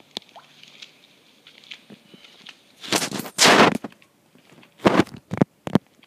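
Handling noise from a handheld phone: faint ticks, then a loud rubbing rustle about three seconds in, then four sharp knocks near the end.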